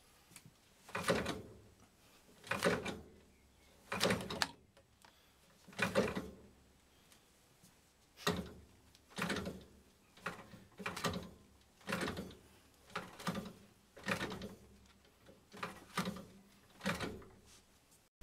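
Pressurized home-built Stirling engine with a four-bar-link drive, charged to 4 and then 6 bar and turning over slowly. It gives a whoosh of gas once per cycle, about every second and a half at first and then about once a second.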